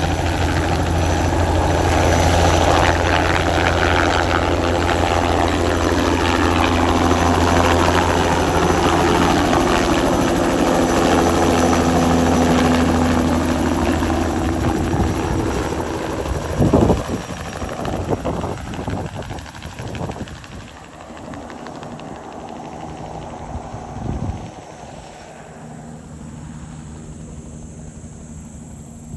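Crop-spraying helicopter's rotor drone and turbine sound, loud and steady with its pitch slowly dropping, then fading away over the second half, with a few irregular knocks in the middle.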